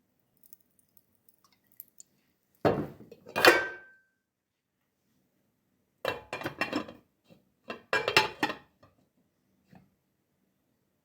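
Kitchen utensils and dishes clinking and scraping in three short bursts: the first comes about two and a half seconds in with a brief metallic ring, and the other two come in quick succession a few seconds later.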